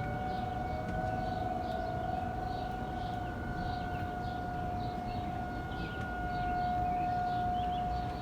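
Outdoor tornado warning sirens sounding a steady, unbroken tone, with the level swelling slightly near the end. A second, fainter siren at a slightly lower pitch can be heard under it for the first few seconds.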